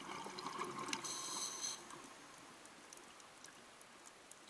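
Underwater reef ambience: faint scattered clicking over a steady hiss, with a brief rush of bubbling water in the first two seconds.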